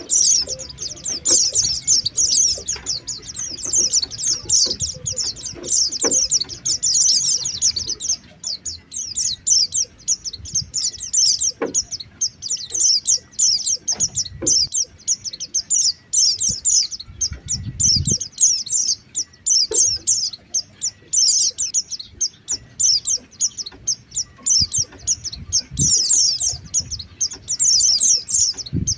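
White-eyes (pleci) giving a dense, rapid, high-pitched twittering chatter in quick back-to-back bouts, the lure call used to draw white-eyes down, with a brief pause about eight seconds in. A few faint low knocks sound under it.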